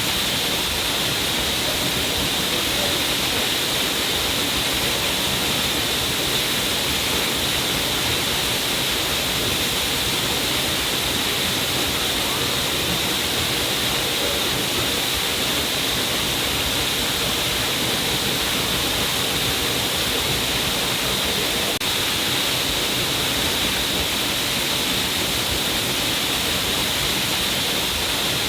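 A stream of water falling down a cliff face, splashing and rushing in a steady, unbroken hiss.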